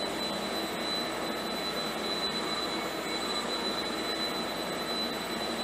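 Steady mechanical whirring with a constant high-pitched whine, from the industrial robot arm and the stepper-motor aiming turret of a camera-guided airsoft gun running.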